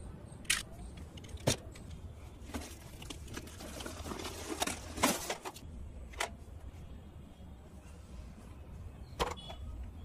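Unboxing handling noises: a cardboard box cut open with a utility knife, with a few sharp clicks and knocks and a stretch of scraping and rustling in the middle.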